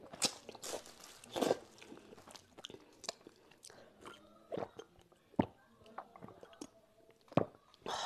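Close-up eating sounds of a person eating handmade wheat noodles: slurping noodles in and chewing, with scattered wet mouth clicks. Partway through comes a drink from a glass mug.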